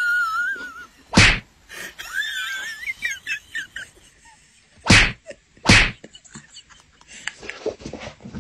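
A cat's wavering, warbling cries, broken by three sharp smacks: one about a second in and two close together about five seconds in.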